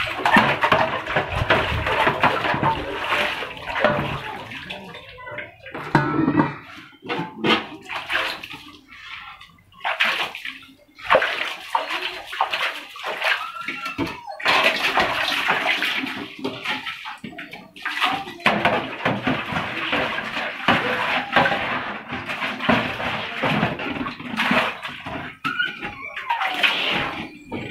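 Water splashing and pouring as metal pots are scrubbed and rinsed by hand over a large metal basin, in uneven bursts with short pauses and occasional knocks of metal on metal.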